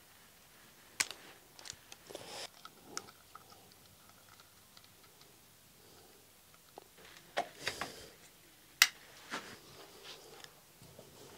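Scattered clicks, taps and short rustles of small hand tools and electrical cable being handled on a wooden table while an LED floodlight is wired up, with the sharpest click about two-thirds of the way in.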